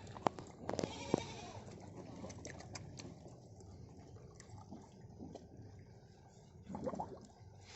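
Goats bleating, once about a second in and again near the end, among scattered short clicks and knocks.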